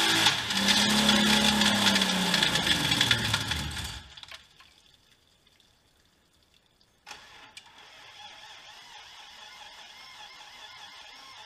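1990 BMW 325i E30's 2.5-litre straight-six running and revving up and back down with heavy clunking knocks, the sound of an engine that has self-destructed internally; it shuts off about four seconds in. A click and a faint steady hum follow about seven seconds in.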